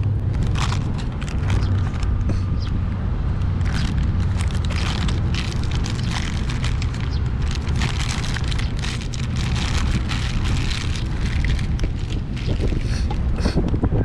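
Paper burger wrapper crinkling and rustling as it is folded and crumpled by hand, in many short crackles, over a steady low rumble.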